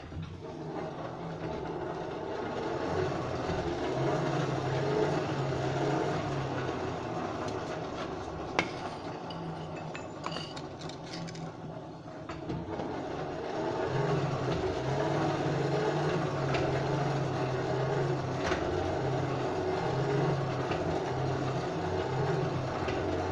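Blacksmith's forge running steadily while the steel knot heats, with a low hum under the noise. The sound dips for a few seconds about halfway through, and there are a few light clinks of tools.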